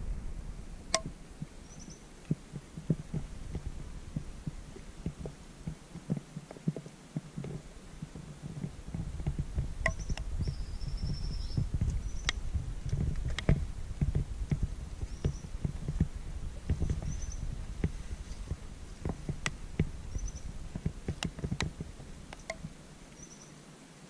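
Uneven low rumble and irregular knocks from a small boat moving on a lake, with a few sharp clicks. A bird gives short high chirps every second or two over it.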